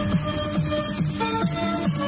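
Electronic dance music with a steady beat and a bouncing bass line of about four short notes a second.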